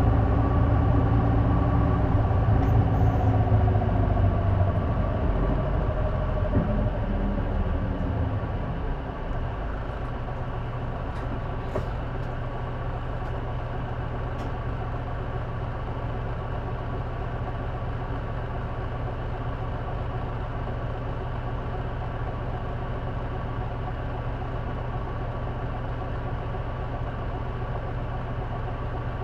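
A J-Bus city bus's turbo diesel engine heard from on board. It winds down as the bus slows, its tones falling in pitch over the first several seconds, then idles steadily at a lower level from about nine seconds in.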